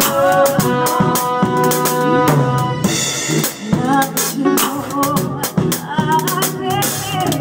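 Live band playing a song at a soundcheck: a drum kit keeps the beat with bass drum and snare under held, wavering melodic notes.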